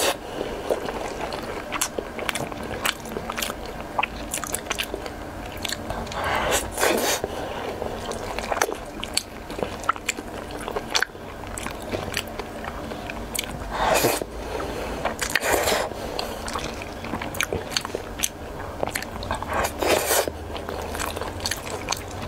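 Close-up eating sounds of braised eggplant rice: wet chewing and mouth clicks, with a spoon scraping the bowl as mouthfuls are scooped up. Several louder bites stand out, about six seconds in, twice around the middle and near the end.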